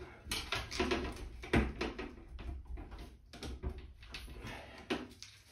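Irregular clicks, knocks and scraping of plastic and sheet metal as a NuTone bathroom exhaust fan unit is pushed and seated into its ceiling housing by hand.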